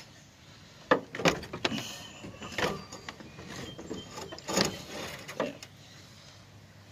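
Irregular knocks, clicks and scrapes of hand work on a car's radiator hoses in the engine bay: about half a dozen sharp clunks, the loudest just under a second in, with quieter rattling between.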